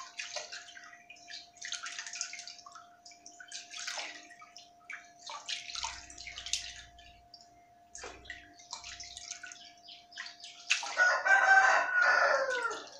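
Hands splashing and swishing brass vessels through basins of water to rinse them, in short bursts every second or two. About eleven seconds in, a rooster crows loudly, its call falling in pitch over about two seconds.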